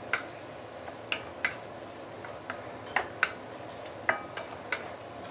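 Wooden spatula stirring pork belly slices in sauce in a nonstick wok, with irregular light knocks against the pan over a faint steady simmer.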